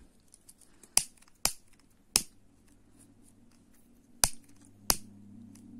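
A hand-held lighter being struck: five sharp clicks, three in the first half and two more about four and five seconds in. The flame is for melting the cut ends of nylon crochet thread so they fuse in place.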